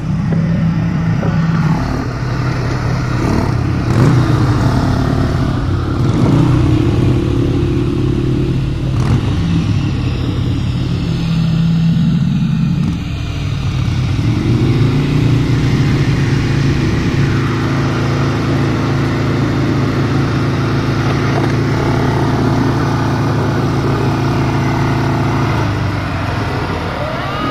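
ATV (quad bike) engine running under way, its pitch shifting up and down with the throttle. About halfway through the revs climb and then hold steady for a long stretch, with a couple of sharp knocks in the first part.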